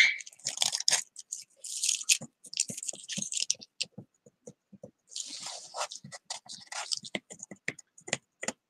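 Pointed metal tool scraping and picking leftover pattern paper off a wood-burned wood round: a run of short scratches and clicks, with a few longer scraping strokes and one louder scrape at the very start.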